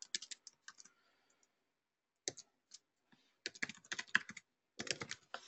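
Typing on a computer keyboard: quick runs of keystrokes, with a pause of about a second and a half early on before the typing resumes in short bursts.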